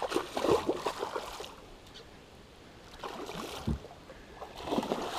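Water splashing in irregular bursts, in the first second and a half, again around three seconds in and near the end: a hooked, still lively musky thrashing at the surface close to the boat.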